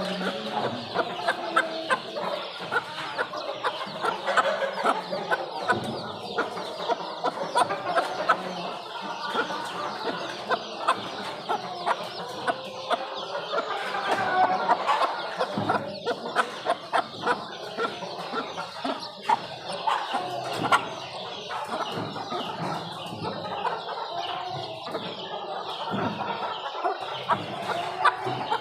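Aseel chicks calling continually as they feed, with many quick clicks of beaks pecking at the food.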